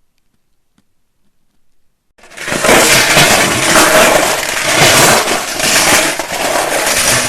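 A loud, dense crashing and crunching of things breaking, starting suddenly about two seconds in and running for about five seconds after a few faint ticks.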